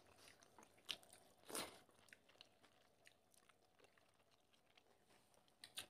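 Near silence, broken by a few faint, short mouth sounds of people chewing rice and fish curry eaten by hand; the clearest is about a second and a half in.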